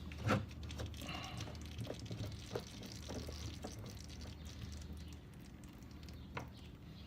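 Faint scattered clicks and knocks of a spin-on oil filter being unscrewed by hand from a motorcycle engine, over a low steady hum.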